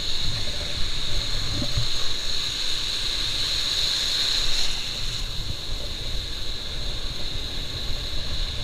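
Strong wind buffeting the microphone in gusts, over the sound of sea surf, with a steady high-pitched hiss throughout.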